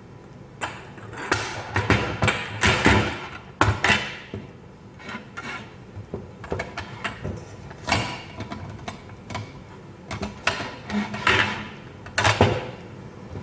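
Irregular plastic clacks, knocks and scraping as a hand-crank vegetable spiralizer's plastic body and parts are handled, turned over and set down on a wooden table.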